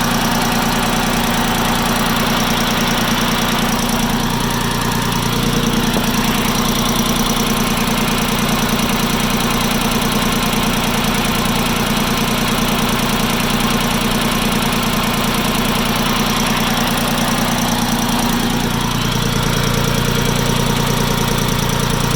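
Farm Pro 2425 tractor's diesel engine running steadily at a warm idle with a knock. The knock shows up only once the engine has run 5–10 minutes from cold, and its cause is still unknown. The engine's note shifts slightly a few seconds in and again near the end.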